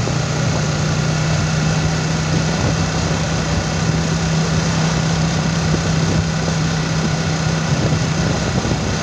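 A vehicle's engine running at a steady cruising speed: a constant low hum over a rushing haze of wind and road noise.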